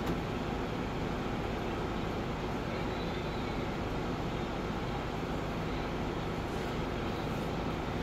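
Steady, even background rumble at a constant level with no distinct knocks or calls, the room's noise during grappling practice on mats.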